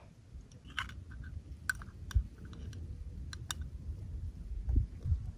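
Scattered light clicks and taps, a dozen or so at uneven intervals, over a steady low rumble.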